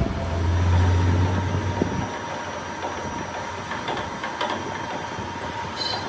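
A low motor hum that stops about two seconds in, leaving steady background noise with a few light clicks.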